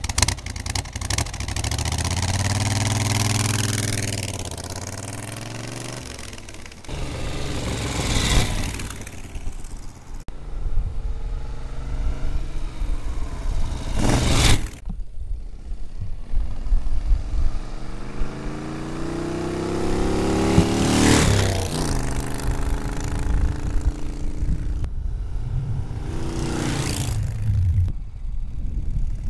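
1971 Moto Guzzi V7's transverse V-twin engine revving through its twin exhausts, the note rising and falling. It is followed by several ride-bys, the engine note climbing as the bike accelerates toward the camera and peaking loudly as it passes, about four times.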